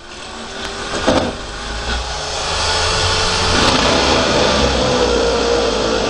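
Corded electric drill being used. Its motor cuts out at the very start, a sharp knock comes about a second in, and from about halfway the drill runs steadily again, its pitch sagging slightly.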